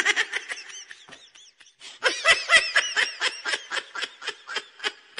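Comedic laughter sound effect: a rapid, high-pitched 'hee-hee-hee' laugh of about six syllables a second. It fades away over the first two seconds, then starts again and runs on until just before the end.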